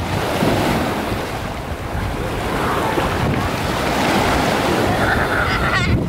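Small sea waves breaking and washing through shallow surf, with wind rumbling on the microphone.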